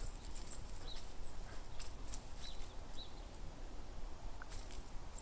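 Quiet outdoor ambience over a low rumble, with a few short, high chirps from small birds scattered through it.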